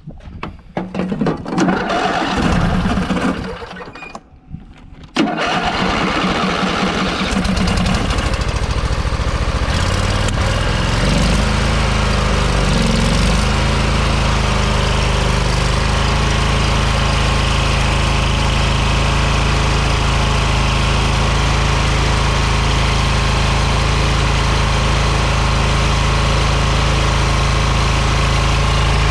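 Lawn mower engine cranking and sputtering, then catching about five seconds in and running steadily at high speed, its pitch wavering for a few seconds before settling. It is being run hard to make it throw a rod.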